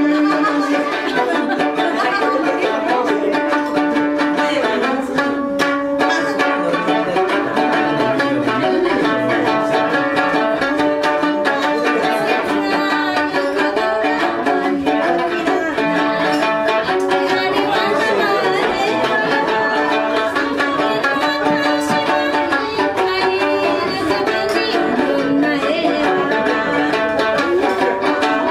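Sanshin, the Okinawan three-stringed lute, playing a lively kachāshī dance tune as a steady run of quick plucked notes.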